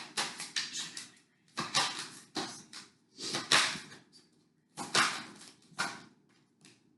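A tarot deck being shuffled and handled before a card is drawn: several bursts of quick card slaps and swishes with short pauses between them.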